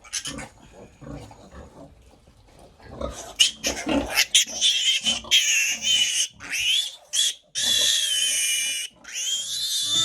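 Pigs, likely young piglets, squealing loudly and shrilly from about three seconds in: a string of short squeals, then two long drawn-out squeals near the end. Faint low grunting comes before the squealing.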